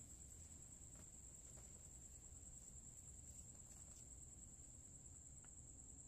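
Near silence: room tone with a faint, steady high-pitched whine, and a few faint soft ticks as hands pull apart a Venus flytrap's tangled roots and soil.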